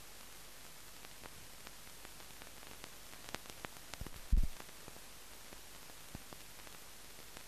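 Steady hiss of a soundless film transfer. Scattered faint clicks run through it, and a single low thump comes a little past the middle.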